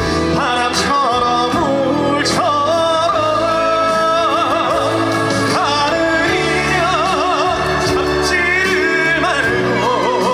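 Live trot band music: steady backing chords under a wavering melody line with heavy vibrato.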